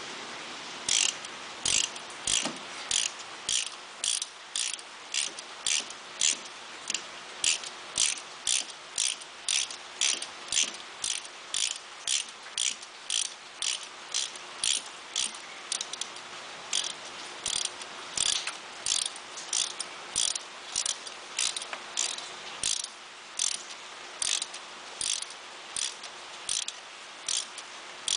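Socket ratchet clicking in an even rhythm, about two clicks a second with a couple of short pauses. It is winding a new spark plug into the cylinder head through a spark plug socket on a long extension.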